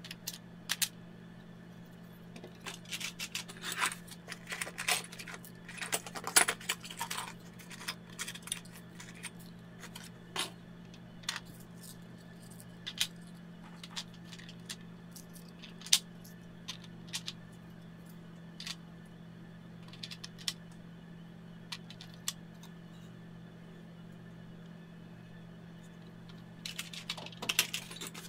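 Metal CNC clamping hardware and hex keys clicking and rattling against a 3D-printed plastic drawer insert as they are handled, in scattered clicks with a busier spell a few seconds in and again near the end. A steady low hum runs underneath.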